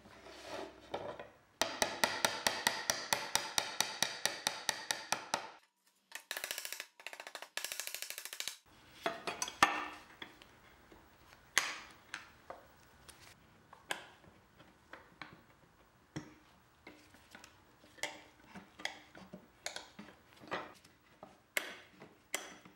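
Hand tools working on old wooden table parts. First comes a rapid run of sharp clicks over a rasping noise, about five a second for a few seconds, then scraping. After that come scattered taps, knocks and clicks as a scraper pries the boards and pliers pull out the old nails.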